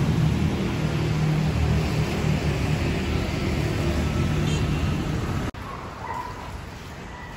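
Steady vehicle rumble with a low drone, like road traffic or a car in motion. It cuts off suddenly about five and a half seconds in, leaving a much quieter background with a few faint short tones.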